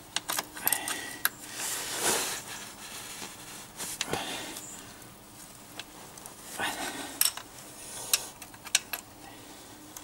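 Adjustable spanner clinking and clicking on the steel rear axle nut of an e-bike as it is fitted and worked to loosen a tight nut. Sharp metal clicks come irregularly, with a few longer scuffing sounds between them.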